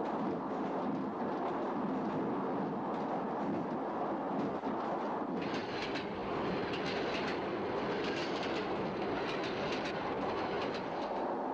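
Passenger train running, a steady rumble, with the wheels clattering over rail joints in quick groups of clicks from about halfway through.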